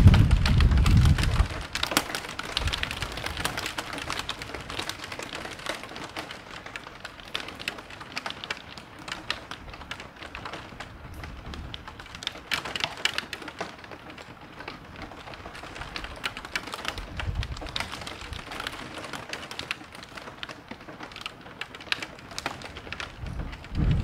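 Heavy rain falling, with many close drips and splashes ticking through the downpour. A low rumble of thunder dies away in the first second or two, and a fainter rumble comes about two-thirds of the way through.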